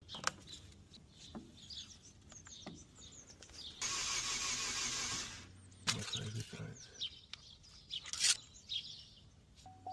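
Opel Corsa E 1.4 engine being cranked by its starter for about a second and a half without firing: a crank-no-start fault. A few low knocks and a sharp click follow, with birds chirping throughout.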